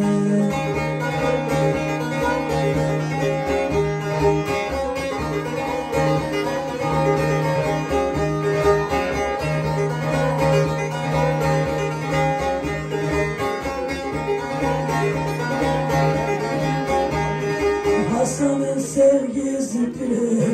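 Instrumental passage of the semah tune on a plucked bağlama (long-necked saz): a repeating melody over a steady low drone, with no singing.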